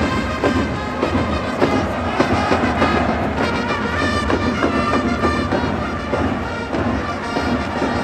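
Baseball cheering squad's trumpets playing a cheer tune over steady drumbeats.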